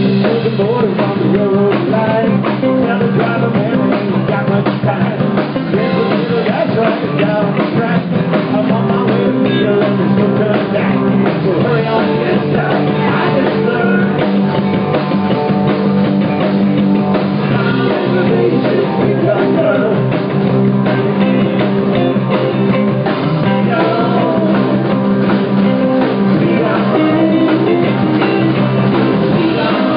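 Live rock band playing loudly: drum kit, electric guitars and bass guitar, with singing over them.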